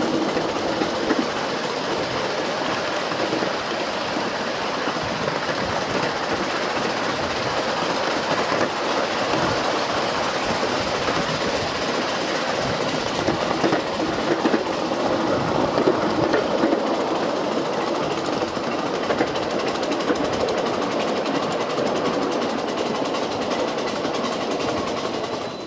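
Ridable 7½-inch gauge miniature railway cars rolling along the track: a steady rumble and rattle of steel wheels on rail with quick irregular clicks, a little louder about halfway through.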